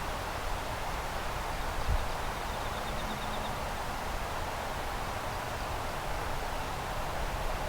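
Steady outdoor background noise, an even hiss and low rumble, with a single brief low thump about two seconds in.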